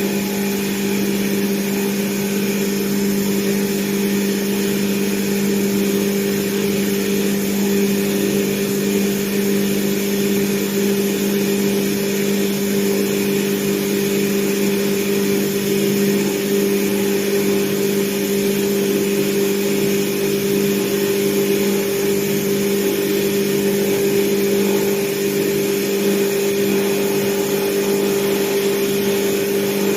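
CNC plasma cutter cutting steel flat bar: a steady hiss of the arc and air jet over a constant low hum, unbroken throughout.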